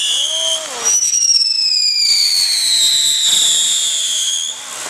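Whistling fireworks: several overlapping high shrill whistles, each sliding slowly down in pitch, with a fresh one starting sharply about a second in and the whistling fading near the end.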